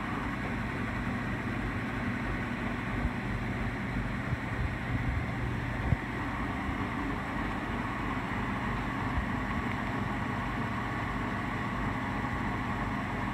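Sunnen MBB-1660-K honing machine running steadily, its belt-driven spindle turning at about 800 RPM with a smooth, even hum. A few light clicks from the controls being handled, the sharpest about halfway through.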